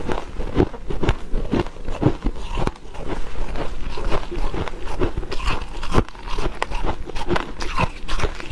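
Someone biting and chewing dry freezer frost close up: a dense, irregular run of crisp, squeaky crunches.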